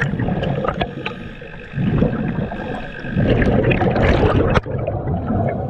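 Underwater bubbling from a scuba diver's regulator exhaust, coming in surges that swell and fade with each breath.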